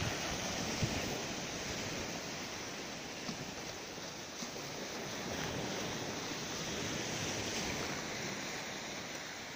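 Small sea waves breaking and washing up a sandy shore: a steady, even hiss of surf.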